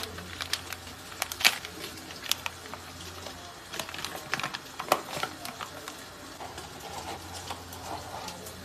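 Paper flour bag crackling and rustling as its folded top is pulled open by hand, a quick irregular string of sharp crinkles. The crinkling eases off in the last few seconds as a spoon goes into the flour, over a low steady hum.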